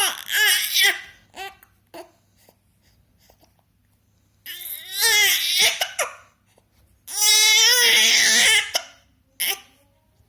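Baby crying and fussing in several wavering bursts, the longest about a second and a half long in the second half, with short hiccups in between.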